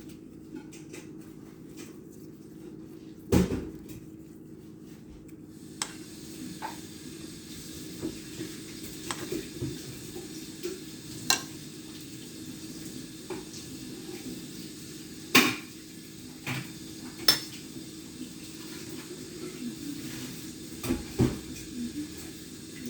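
Kitchen clatter: dishes and utensils clinking and knocking now and then, with the loudest knocks about three seconds in and again around the middle, over a steady low hum.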